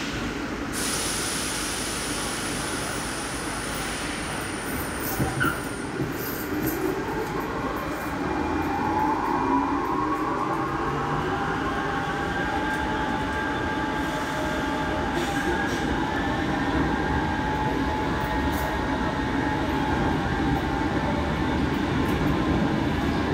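Barcelona Metro Series 4000 train pulling out of a station and accelerating. A thin high tone sounds for the first few seconds. From about six seconds in, the traction motors whine in several tones that rise together in pitch over a steady rumble of wheels on rail.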